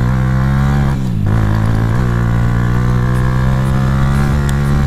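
Suzuki GS 150 SE motorcycle's single-cylinder four-stroke engine running hard under way. The revs climb, drop briefly about a second in, then rise again and hold steady.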